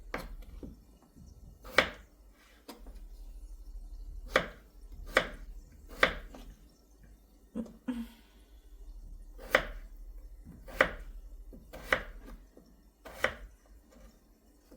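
Kitchen knife chopping potatoes on a cutting board: about ten separate sharp chops, irregularly spaced a second or two apart.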